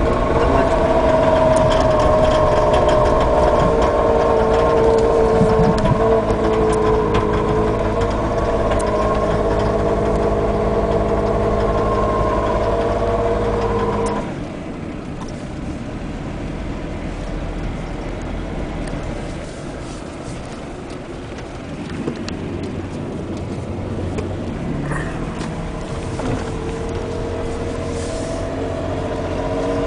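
Nissan Elgrand's VQ35DE 3.5-litre V6 engine running steadily. About halfway through it drops abruptly to a quieter, lower sound, then comes back up near the end. This is an engine the owner is checking for an unexplained knock and poor pulling under load.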